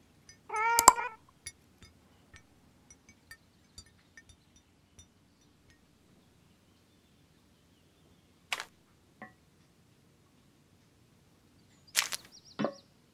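A cartoon cat's short meow about half a second in, then sparse light ticks and taps. Two sharp clicks come past the middle, and a brief cluster of clicks with a short tone near the end.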